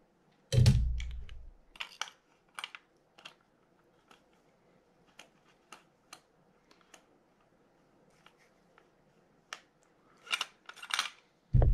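Irregular light clicks and taps of a Shimano TLD20 2-speed reel's spool, shaft and frame being handled and fitted together, with a dull thump about half a second in and another just before the end. A quick cluster of louder clicks comes shortly before the second thump.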